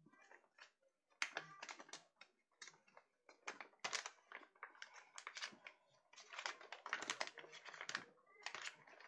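Sheet of paper being folded and creased by hand: crisp rustling and crinkling in quick, irregular bursts.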